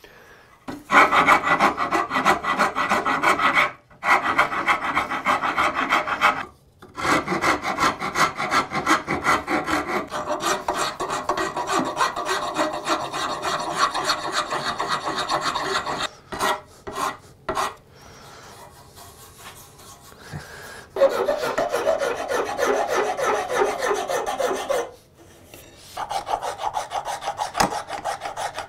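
Hand files rasping wood in quick, repeated back-and-forth strokes, shaping a hardwood repair on a hand plane tote's horn. The strokes come in runs with short breaks, and there is a quieter spell about two-thirds of the way through.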